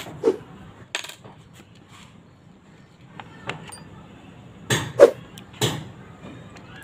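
Scattered clicks and clinks of a mini die grinder and its small accessories being handled while the bit is changed, with a louder knock about five seconds in. The tool is not running.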